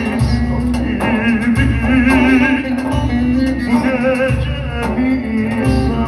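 Live Turkish folk music: a man sings into a microphone with a wavering vibrato, over a bağlama (long-necked saz) and an electronic keyboard with a low bass that comes and goes.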